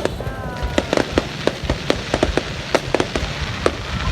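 Fireworks going off in a dense run of sharp bangs and crackles, several a second at uneven spacing, over a steady rumble.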